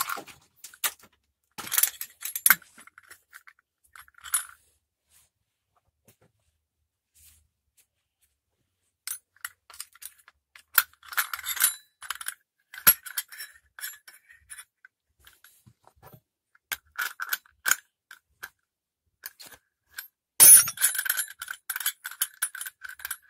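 Small metal parts of a brush cutter's blade mount and gearbox head clinking and tapping together as they are handled and fitted. The clicks are scattered, with a quiet stretch of a few seconds near the start and a busier clatter near the end.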